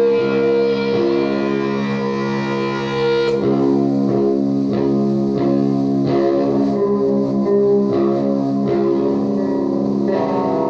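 Electric guitar through an Orange amplifier in a psychedelic looped drone: sustained held tones, with freshly picked notes played over the loop from about three seconds in.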